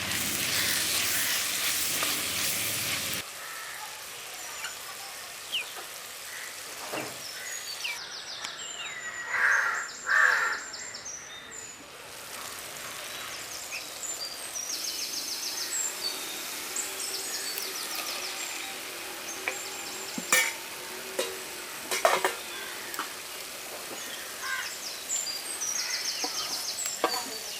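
Food sizzling as it fries in a pan, cutting off suddenly about three seconds in. After that come birds chirping and calling, with two louder calls about nine and ten seconds in and a few sharp clicks.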